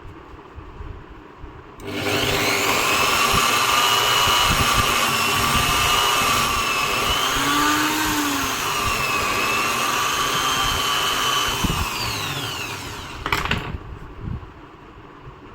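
Electric drill motor switching on about two seconds in and running at speed with a slightly wavering whine, with scattered low knocks. Near the end its pitch falls as it winds down and stops.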